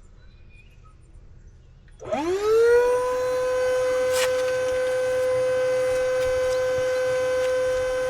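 A small electric motor starting about two seconds in, its whine rising quickly in pitch as it spins up and then running at one steady pitch.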